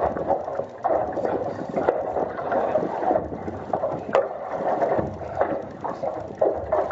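Water slapping and sloshing against the hull of a small boat in uneven surges, with a single sharp click about four seconds in.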